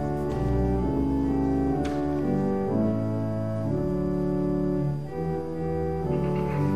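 Organ playing a hymn tune in full, sustained chords that change every half second or so.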